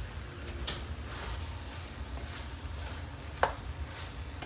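A wooden spoon stirring a thick mix of okra, bacon and tomato purée in a metal pan, scraping and knocking against the pan, with a few sharp clicks, the loudest about three and a half seconds in.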